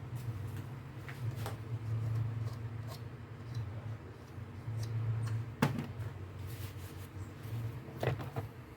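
Light clicks and knocks of small metal starter-motor parts being handled during assembly, over a steady low hum. The sharpest knock comes about five and a half seconds in.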